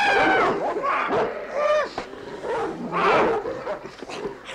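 A dog snarling and barking as it mauls a man, mixed with the man's screams. A long scream ends about a second in, followed by several shorter cries and snarls.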